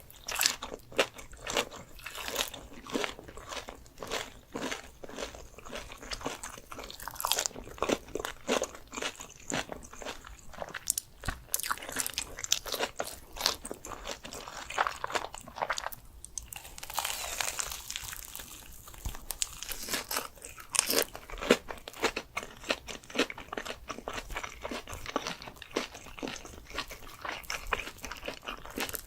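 Close-miked biting and chewing of crunchy food: a dense, irregular run of crisp crunches and crackles.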